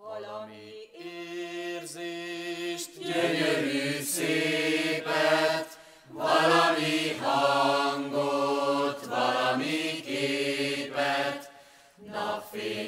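Music: a chanted song begins from silence, with voices singing long held notes and no clear words.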